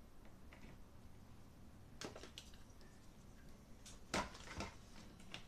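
Quiet room tone broken by a few short clicks and knocks, a couple about two seconds in and a louder cluster around four seconds in.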